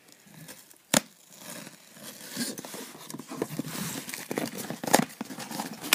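Cardboard box and packaging being torn and rustled open by hand, with a few sharp snaps of the cardboard.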